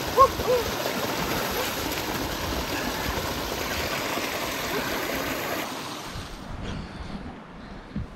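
Creek water running and splashing over rocks, a steady rushing noise that stops abruptly about six seconds in. A few short voice sounds come right at the start.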